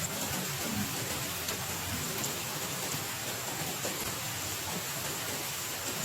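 Heavy rain falling, a steady hiss with scattered ticks of individual drops.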